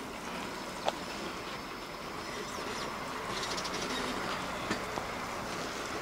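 Steady rushing outdoor background noise, with a sharp click about a second in and a few faint ticks later.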